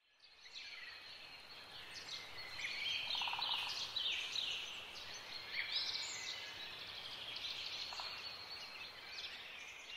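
Wild songbirds singing and chirping, many short calls overlapping, with a short rattling call about three seconds in.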